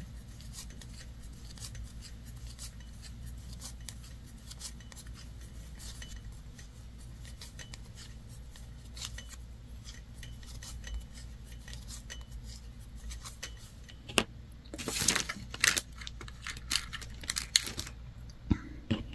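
Bamboo knitting needles ticking softly as stitches are knit, then a run of louder clicks and rustling about 14 seconds in as the needles and knitting are set down on the table.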